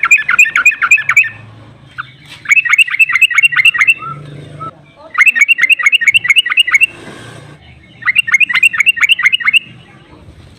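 Yellow-vented bulbul (trucukan) giving its 'ropel' call: fast trills of about eight or nine sharp notes a second, in four bursts of one and a half to two seconds with short pauses between.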